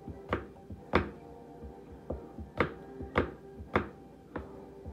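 Kitchen knife slicing an apple on a wooden cutting board: about six sharp knocks of the blade striking the board, irregularly spaced.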